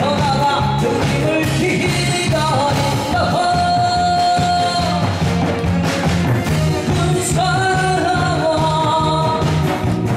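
A singer performing over a loud, upbeat backing track, holding long, wavering notes above a steady bass beat.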